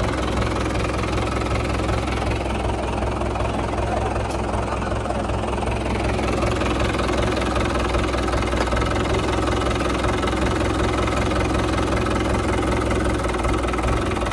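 Mahindra 475 DI tractor's four-cylinder diesel engine idling steadily.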